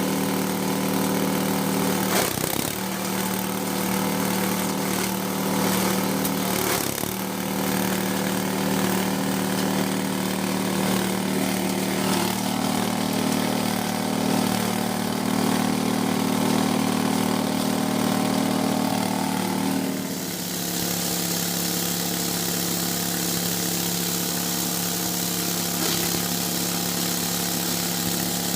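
G-20 multifunction grass chopper and grinder running steadily with a constant machine hum. The hum dips briefly about two and seven seconds in, then drops slightly in pitch and settles about twenty seconds in.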